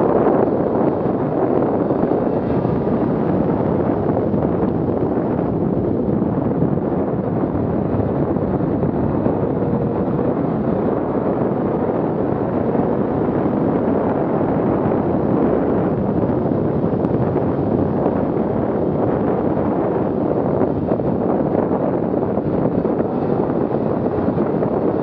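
Steady wind rush on a helmet-mounted microphone while riding a 2017 Arctic Cat M8000 two-stroke snowmobile, with the sled's engine running under the wind.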